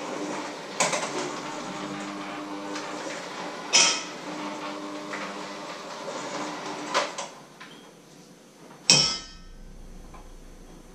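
Electric hand mixer running in a bowl, a steady whirr that stops about seven seconds in, with a few sharp knocks against the bowl. A loud single knock comes near the end.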